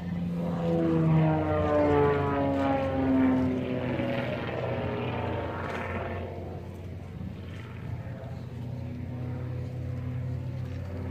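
Propeller-driven aerobatic plane's engine and propeller droning. The pitch falls steadily over the first six seconds, then settles into a steady lower drone.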